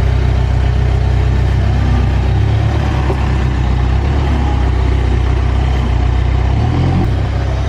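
Diesel engine of a JCB backhoe loader running steadily with a deep, even drone, its pitch shifting slightly a couple of times.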